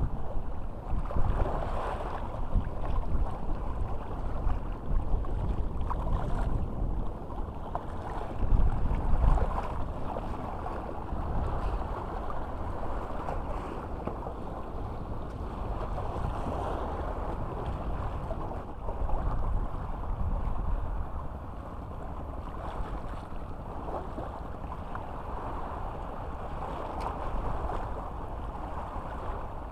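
Wind buffeting the microphone with shallow seawater lapping around it: an uneven rushing that swells about eight to nine seconds in.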